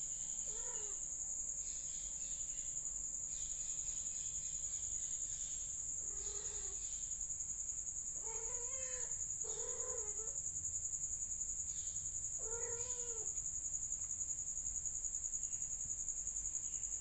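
Cats meowing: about five drawn-out meows, with a steady high chirring of crickets behind them.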